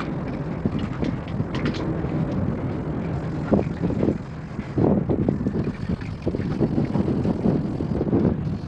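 Steady rumble of traffic on the bridge overhead, with wind buffeting the microphone.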